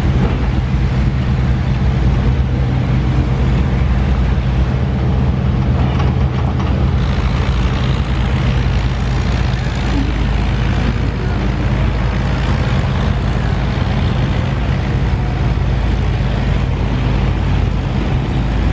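An engine running steadily, a low, even drone that holds the same pitch throughout.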